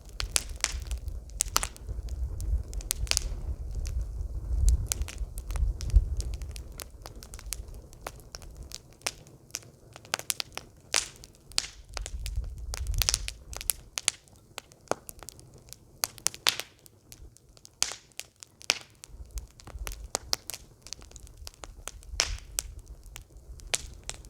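Campfire crackling, with irregular sharp pops and snaps and a low rumble that swells and fades.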